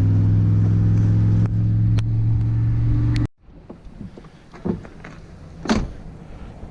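Truck engine running, a steady low hum that cuts off abruptly a little over three seconds in. After that it is much quieter, with a few light knocks and taps.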